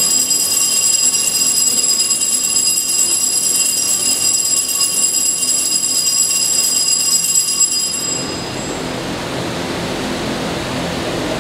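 Bells rung continuously at the elevation of the host during the consecration of the Mass, a steady high-pitched jangling; about eight seconds in the clear ringing gives way to a duller hiss.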